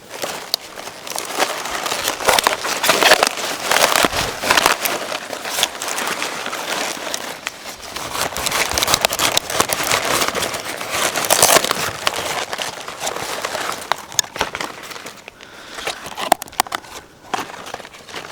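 Dense dry crackling and rustling with many sharp clicks, rising and falling in loudness.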